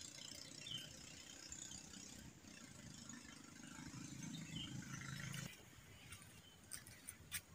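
Faint outdoor ambience: a low steady hum with light background hiss and a couple of faint chirps. It cuts off abruptly about five and a half seconds in, and a few soft clicks follow near the end.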